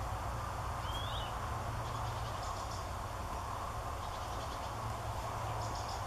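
Steady outdoor background of low rumble and hiss, with a single short high chirp from a small bird about a second in and faint high twittering now and then.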